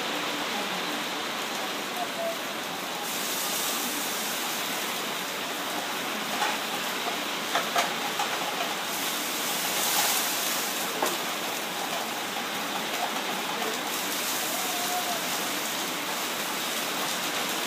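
Steady hiss of pans sizzling on a gas range, with a few light clinks of a metal spatula against the frying pan as the sauce is stirred.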